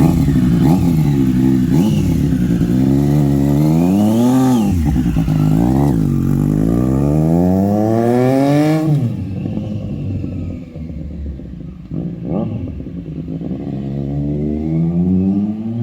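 Triumph Street Triple 765 RS inline-three engine through an SC Project exhaust, revving up and down over and over. About nine seconds in, the sound turns duller and quieter, and the revs climb again near the end.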